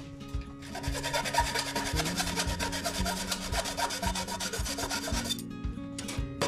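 Hacksaw cutting through a thin rod, a steady rasp that starts about half a second in and stops about a second before the end.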